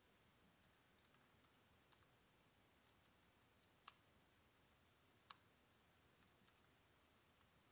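Near silence with faint, scattered computer keyboard key clicks from typing code, two of them a little sharper about four and five seconds in.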